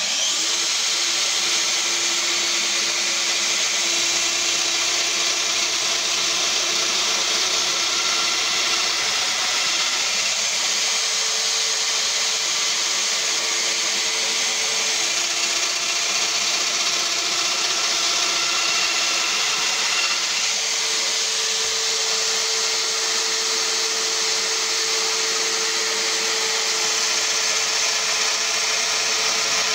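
Festool Domino XL DF700 joiner with an 8 mm cutter running steadily along with its connected dust extraction, a loud even whine and hiss that starts suddenly as the tool is switched on, while mortises are cut into the door-frame pieces.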